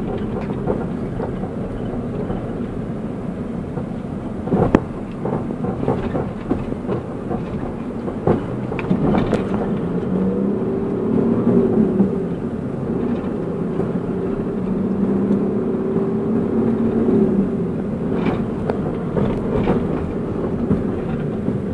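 A car being driven: its engine runs steadily over tyre and road noise, the engine pitch rising and falling twice in the middle, with a few sharp knocks along the way.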